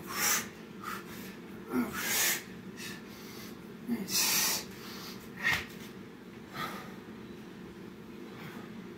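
A man breathing hard during burpees: short, forceful exhales every second or two, the strongest about two and four seconds in, easing off near the end.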